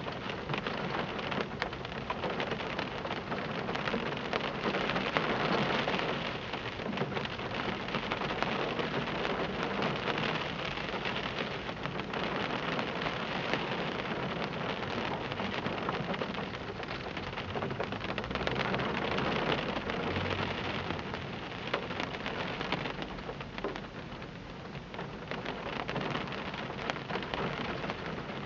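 Heavy rain pouring down and beating on a glass pane close by, the downpour swelling and easing in waves.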